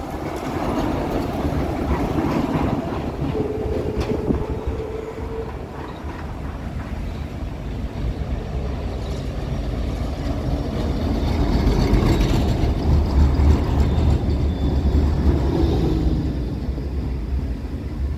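Two trams pass on the rails in turn: an older articulated tram rolls by close up at the start with a short steady whine, then a modern low-floor tram approaches and passes, its rumble on the track loudest from about twelve to sixteen seconds in.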